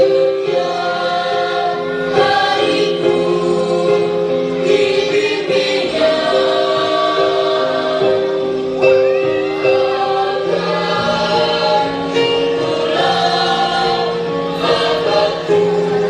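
Music: a song sung by a group of voices over instrumental backing, with sustained notes that change every second or two.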